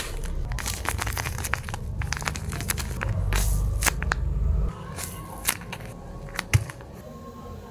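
Paper crinkling and crackling as a glossy taped paper squishy and its paper blind bag are handled and squeezed: a dense run of small crackles that thins out a little over halfway through, with one soft thump near the end.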